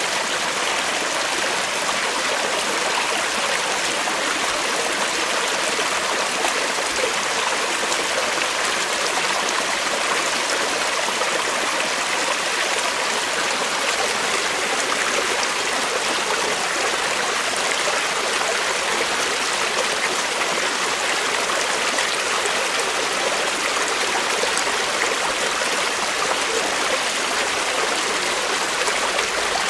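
Creek water flowing over rocks in a steady, unbroken rush.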